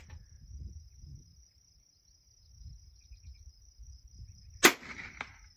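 A single shot from a Bergara .22 LR rimfire rifle near the end, sharp and loud, with a fainter click about half a second after it. A steady high insect trill runs underneath.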